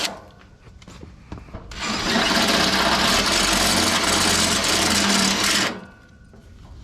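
Electric drill running for about four seconds, starting about two seconds in, its bit cutting a hole through the painted sheet metal of a Massey Ferguson 35 tractor panel.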